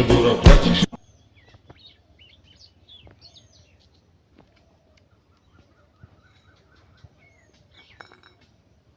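Song with a beat that cuts off about a second in, leaving faint bird chirps and short whistled calls.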